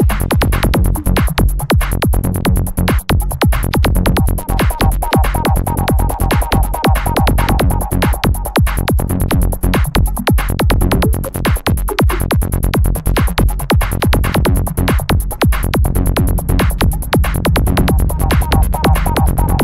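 Electronic trance music with a steady, driving beat and heavy bass.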